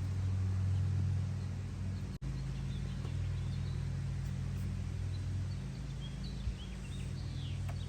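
A steady low hum, with faint high bird chirps a few times over it.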